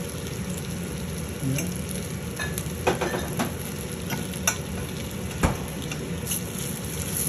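Potato croquettes sizzling steadily in olive oil in a stainless steel frying pan, with a few sharp clicks of metal forks against the pan as they are turned; the loudest click comes about five and a half seconds in.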